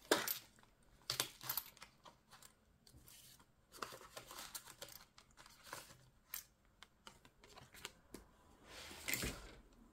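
Paper rustling and crinkling in short irregular bouts, with small clicks, as money and paper are worked into a tight space.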